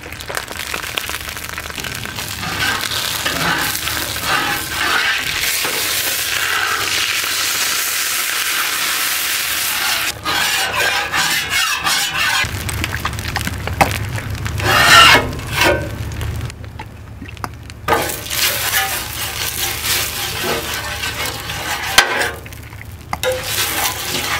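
Hot Blackstone steel flat-top griddle sizzling as its surface is wiped and scraped with a cloth pad, with liquid hissing on the hot plate. A steady hiss for the first several seconds gives way to irregular scraping and knocking strokes.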